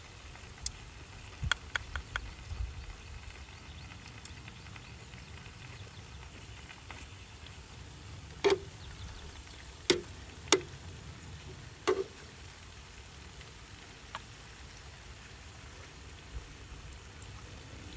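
Food sizzling on a barbecue grill, with a steady hiss and sharp clicks and clacks of utensils against the grill, a few near the start and four louder ones around the middle.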